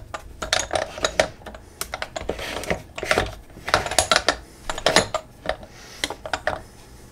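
Lidded ceramic ramekins clinking and knocking against each other and against the plastic Varoma steamer tray as they are set in and shuffled into place: a busy run of small, irregular knocks.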